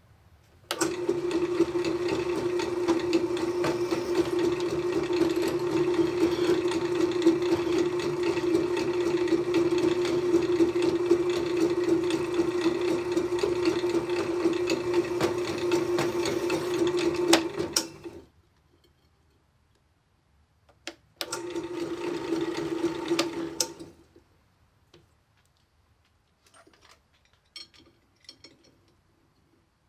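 Benchtop drill press running steadily with a constant motor hum, its bit working into a hardened steel linear-bearing carriage to spot a centre divot. It starts about a second in and stops near the middle, runs again briefly a few seconds later, and then there are only a few light clinks.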